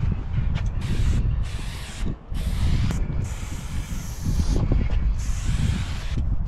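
Aerosol spray paint can spraying in a series of bursts against a wall, short taps and longer strokes, the longest lasting about a second and a half. A steady low rumble runs underneath.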